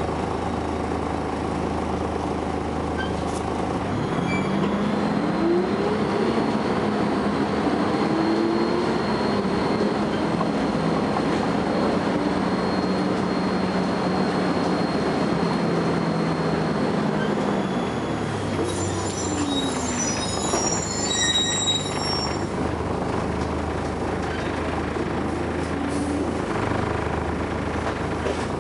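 Volvo B10BLE bus's diesel engine running as the bus drives, its pitch rising a few seconds in, holding, then falling and rising again. A steady high-pitched whine sits above it for much of the first half, and a cluster of higher squealing tones comes just past the middle.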